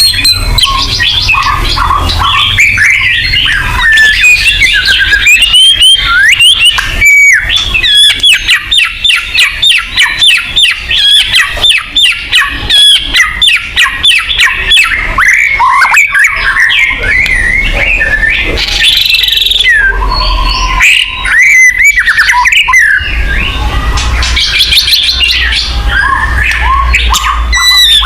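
White-rumped shama (murai batu) singing a loud, varied song of whistled and gliding phrases, with a long run of rapid repeated notes, about four a second, in the middle.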